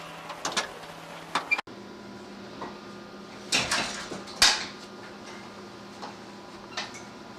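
A few sharp knocks and clatters, the loudest about four and a half seconds in, over a steady low hum.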